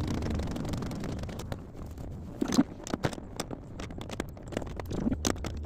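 Screws being driven home by hand with a screwdriver: irregular clicks and scrapes of tool and fasteners against the heater core and its plastic housing, with two louder knocks about two and a half seconds and five seconds in.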